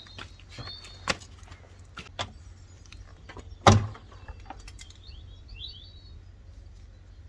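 Scattered clicks and knocks of tools working on a car's front bumper brackets, with one louder knock about three and a half seconds in. Birds chirp faintly in the background.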